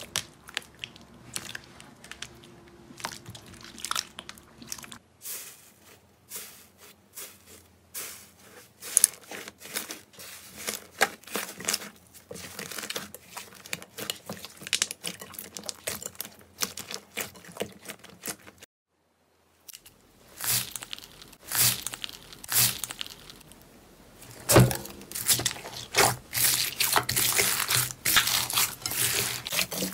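Hands squishing and pressing slime, with sticky, wet clicks and crackles as air pockets pop. The sound drops out briefly about two-thirds of the way through, and the crackling is busier and louder after that.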